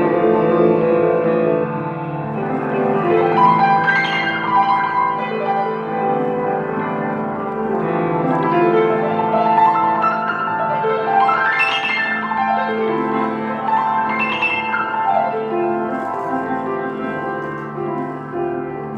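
Instrumental music led by piano, with sustained chords and three rising runs up the keyboard.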